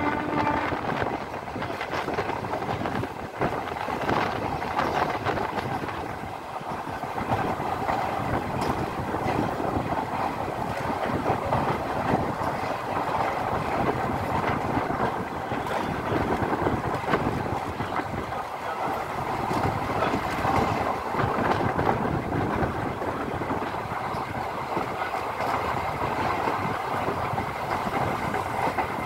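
Passenger train running at speed, heard from a coach window: steady rolling wheel-and-rail noise with clickety-clack over the rail joints. A held horn note cuts off in the first second.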